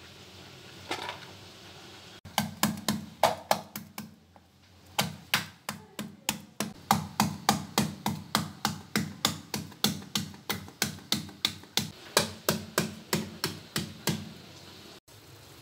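Wooden pestle pounding garlic and ginger in a stainless steel bowl: a fast run of sharp knocks, about three a second, each with a short metallic ring, broken by a brief pause about four seconds in.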